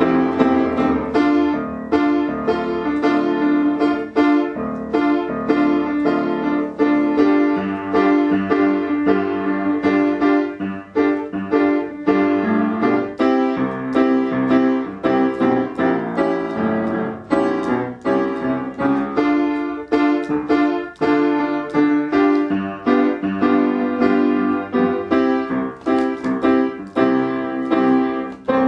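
Piano music on a keyboard, a quick, steady run of notes and chords, played as the opening theme of a show.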